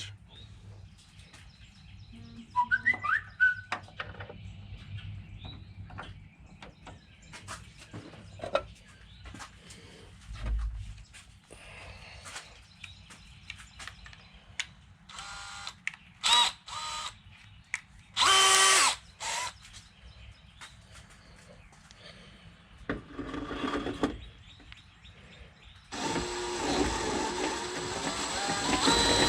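Electric drill enlarging a hole in the car's sheet-metal fender well. After some scattered handling clicks it runs in a few short bursts, then in one longer steady run near the end.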